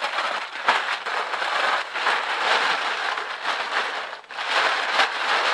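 A dense crackling hiss packed with small clicks, dipping briefly about four seconds in.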